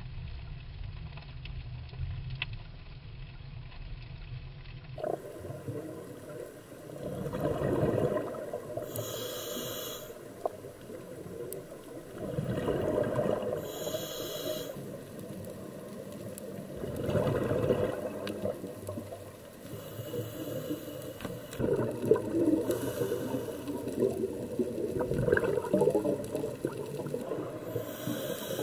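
Underwater breathing through a scuba regulator: a hiss on each inhale and a bubbling rush of exhaled air, repeating every few seconds. For the first few seconds there is only a low underwater rumble, and the breathing cycle begins about five seconds in.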